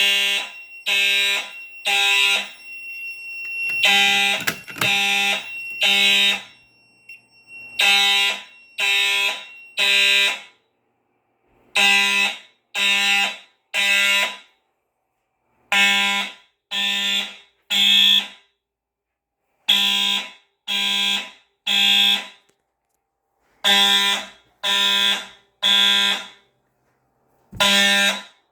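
Fire alarm horns sounding the temporal-three evacuation pattern: three short, loud, buzzy blasts, then a pause, repeating. A brief clatter and a thin steady tone overlap the blasts about four seconds in.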